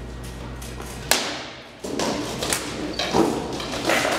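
A rattan sword blow lands with one sharp crack about a second in. A quick run of knocks and scuffling follows as the two armored fighters trade blows and close into a clinch.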